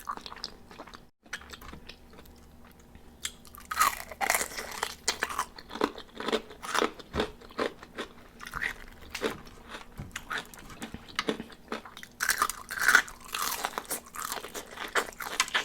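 Close-miked crunching and chewing of crispy fried chicken wings. Loud crunching bites come about four seconds in and again near twelve seconds, with steady chewing between.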